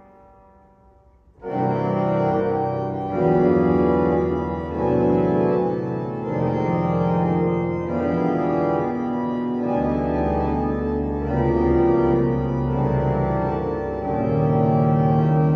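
Hauptwerk virtual pipe organ playing loud, sustained chords with a deep bass line, the chords changing every second or so. It enters suddenly about a second and a half in, after a short near-quiet pause.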